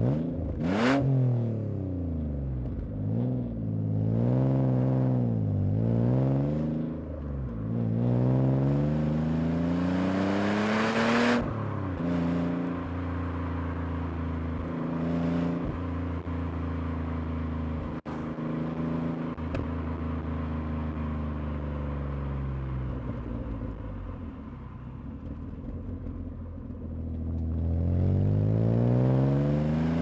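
Alfa Romeo 156's 2.5-litre Busso V6 through a Novitec aftermarket exhaust, heard from inside the moving car. Revs rise and fall several times in the first few seconds, then make a long climb that drops sharply at a gearshift about eleven seconds in. The engine holds a steady cruise, eases off, and the revs climb again near the end.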